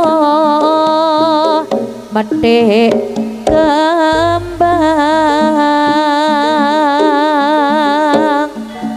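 Javanese jaranan gamelan music played live through a PA: a melody line of long notes with a wide, even vibrato over kendang drumming and a steady low drone, with a deep gong-like stroke about four seconds in.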